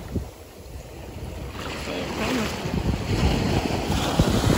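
Small waves washing up over a sandy shore: the hiss of the wash builds from about a second and a half in, with wind buffeting the microphone underneath.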